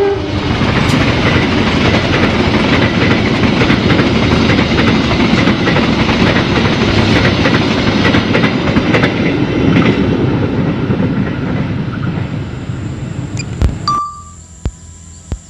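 Passenger train carriages rolling past on the track, a steady loud rumble of wheels on rail that slowly fades as the train moves away, then drops off suddenly about fourteen seconds in.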